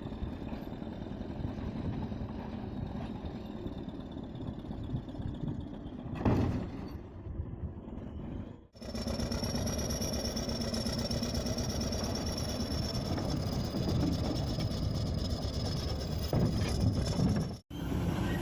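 Heavy machinery engines running, heard over several short clips cut together. There is a short loud knock about six seconds in, and a steady high whine over the engine in the second half.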